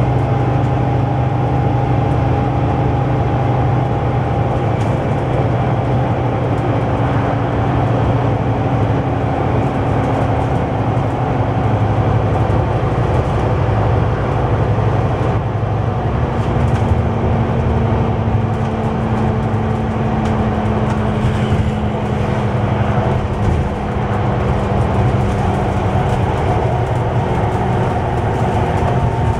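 Scania/Alexander Dennis Enviro400 double-decker bus under way, heard from inside the lower saloon: a steady diesel engine drone over tyre and road rumble. The engine's pitch steps down a little about halfway through.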